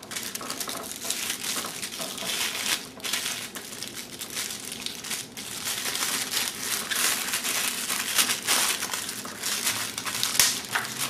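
Plastic packaging around a computer speaker crinkling and crackling steadily as it is handled and unwrapped.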